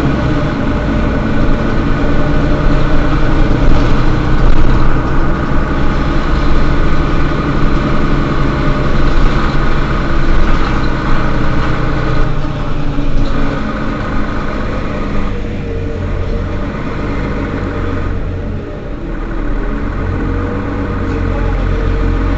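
Mercedes-Benz Citaro Facelift city bus's diesel engine idling with a steady low drone, a faint wavering whine rising and falling in the last few seconds.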